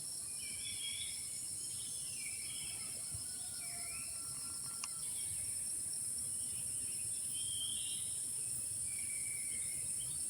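Steady, high-pitched chorus of forest insects, with several birds calling in short chirps and whistled phrases over it.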